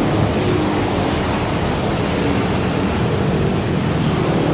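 Steady rushing outdoor street noise from passing road traffic, with faint voices in the background.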